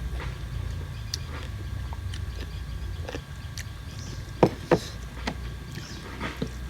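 Close-up eating sounds: chewing and lip-smacking with scattered small clicks, two louder smacks a little past the middle, over a steady low hum.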